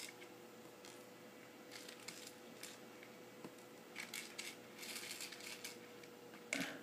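Faint, scattered clicks and taps of small plastic rivets and spacers being set down on a wooden tabletop, over a faint steady hum.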